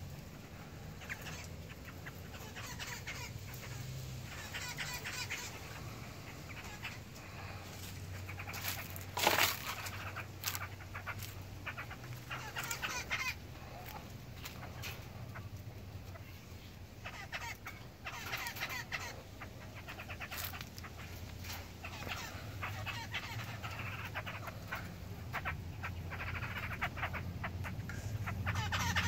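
Young black-throated laughingthrush calling: bouts of short repeated calls through the whole stretch, the loudest about nine seconds in, over a low steady hum.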